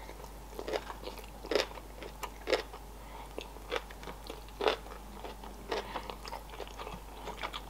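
Close-miked chewing of a mouthful of sushi roll: short, irregular smacks and crunches about once a second.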